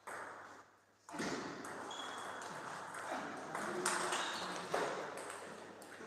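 Table tennis rally: the celluloid ball clicking sharply off the bats and table, the loudest strokes about four and almost five seconds in.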